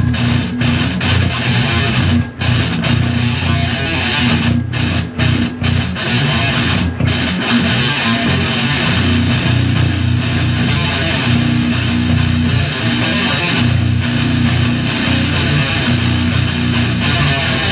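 Electric guitar and bass guitar playing a metal riff together, with a few short stops in the first seven seconds or so.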